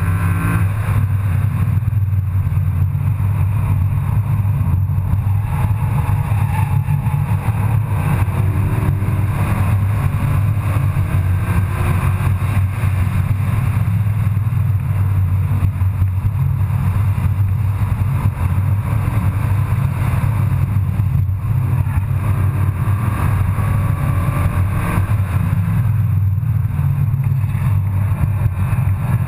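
A car's engine and road noise heard from inside the cabin at track speed: a steady, heavy low drone, with faint engine tones rising and falling as it accelerates and lifts through the corners.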